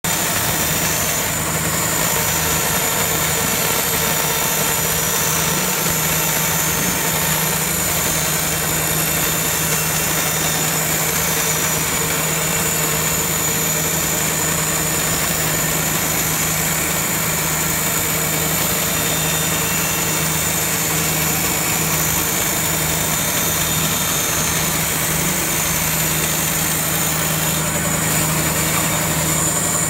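Vertical band saw running steadily, its blade cutting through a stack of plastic cooling-tower fill sheets: a constant low motor hum with a thin high whine over machine noise.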